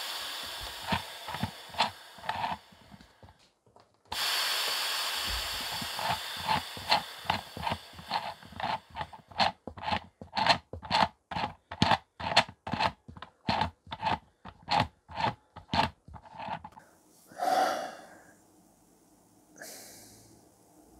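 3D-printed opposed-piston compressed-air engine at 20 psi: air hisses out steadily while its flywheel is turned by hand, giving rhythmic puffs and clicks about two a second that quicken to about three a second, then stop. The builder puts the hissing down to air leaking past the slide valve's graphite-rod seals, which keeps the engine from running. Near the end a man sighs.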